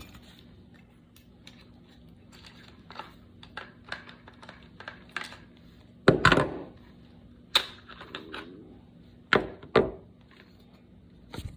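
Clicks and knocks of an AR-15 rifle being handled as its optics are taken off the rail, with louder clunks about six, nine and a half and ten seconds in.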